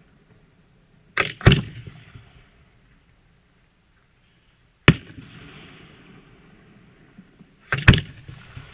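Aerial fireworks shells bursting: two sharp bangs about a second in, a single bang near five seconds and two more close together near the end, each followed by a fading hiss.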